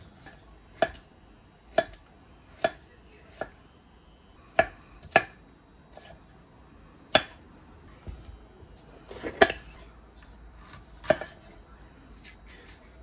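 Kitchen knife slicing carrot and other vegetables into strips on a wooden cutting board: single knocks of the blade on the board, roughly a second apart and unevenly spaced, with a quick run of cuts a little past the middle.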